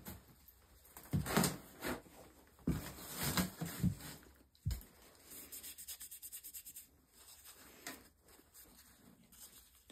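Paper towel rubbing and rustling on the steel of a drawknife blade as a gloved hand wipes glue residue off it. It comes in bursts, with a quick run of short scrubbing strokes about halfway through.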